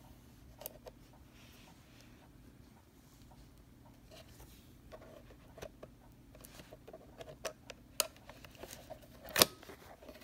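Light, scattered clicks and taps of hands handling a plastic portable DVD player monitor, more frequent in the second half, with one sharper click near the end.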